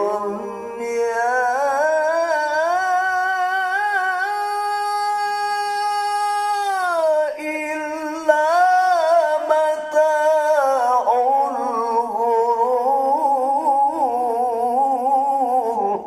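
A man reciting the Quran in the melodic tilawah style, holding one long phrase as breath-length practice. A long steady note about halfway through drops in pitch around seven seconds in, then goes on in wavering ornaments until the voice stops just before the end.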